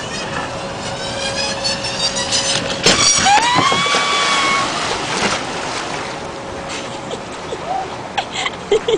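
A kayak slides down a wet concrete launch ramp with a rising squeal, then hits the whitewater with a loud splash about three seconds in. A rising, held cry follows, over the steady rush of the artificial rapids.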